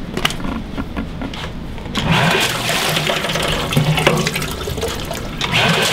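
Liberty Omnivore LSG200 2 HP submersible grinder pump running in a water-filled demo tank, with water rushing and churning. The sound grows much louder about two seconds in. It is pumping against only about 2 ft of lift, so it runs at maximum flow.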